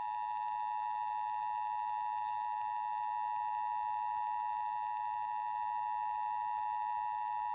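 Emergency Alert System attention signal: two steady tones sounding together just under 1 kHz, held unchanged throughout. It is the warning tone that announces an emergency voice message is about to follow.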